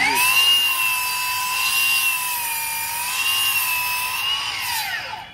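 Milwaukee M18 FMS254 cordless sliding miter saw spinning up to a steady high whine and cutting through a piece of wood, the pitch dipping slightly under load midway, then winding down near the end.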